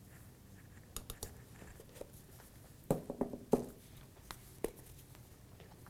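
Spice jars and shakers clinking and knocking against each other as they are handled on a countertop: a few light clicks, then a short cluster of sharper clinks with a brief ring about three seconds in.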